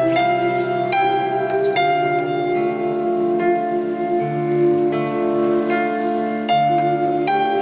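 A boy singing a slow sacred song, accompanied by a digital piano playing held notes that change about once a second.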